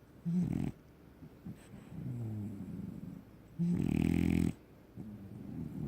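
French Bulldog snoring in its sleep: uneven snoring breaths with a short loud snort just after the start and a louder, buzzy snore lasting about a second a little past the middle. This is the kind of snoring typical of this flat-faced breed.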